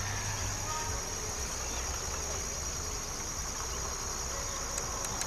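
Steady, high-pitched chorus of insects trilling.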